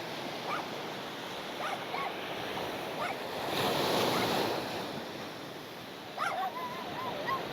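Small waves washing onto a sandy beach, swelling once about four seconds in. Near the end a dog gives a few short, high whines.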